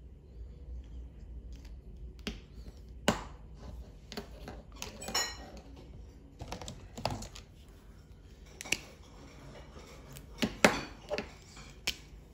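Scattered light clicks and knocks of small hard objects set down or tapped, about a dozen at uneven intervals, one about five seconds in with a short ringing tone.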